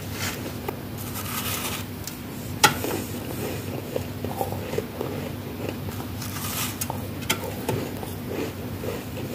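Freezer frost being bitten and chewed close up: crisp crunching with a few sharp cracks, the loudest about two and a half seconds in.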